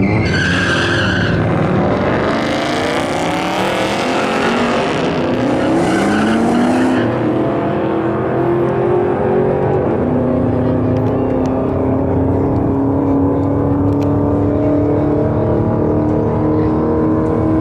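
Two supercharged 2004 Ford Mustangs doing burnouts, with tires squealing over the engines for about the first seven seconds. The engines then settle to a steady idle as the cars creep up to stage, their pitch drifting slowly upward.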